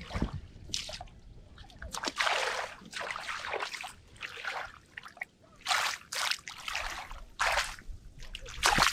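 Hands and arms sloshing and splashing in shallow muddy water, with dripping between irregular splashes.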